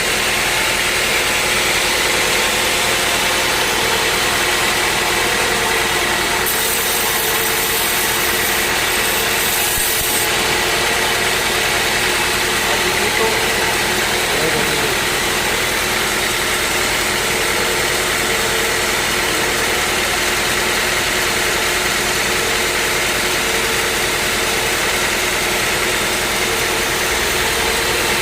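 Sawmill machinery running steadily: an engine-driven hum with an even hiss, unchanging throughout.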